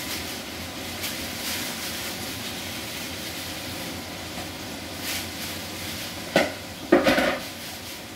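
Food frying in a pan with a steady sizzle, broken by a few sharp clatters of kitchenware a little after six and seven seconds in.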